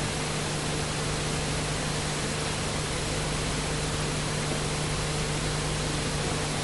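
Steady hiss with a constant low hum and no distinct events, the background noise of an old, worn video recording.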